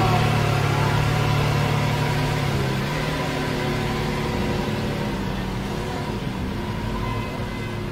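Lamborghini Veneno's 6.5-litre V12 idling steadily. The idle note drops a little about three seconds in.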